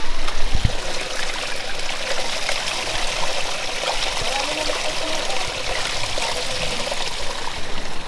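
Small mountain spring trickling and splashing over rocks, heard close up as a steady rush of running water.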